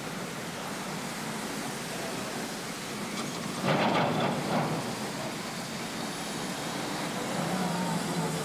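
City street noise: a steady traffic rumble and hiss, with a louder surge about four seconds in, like a vehicle passing close by.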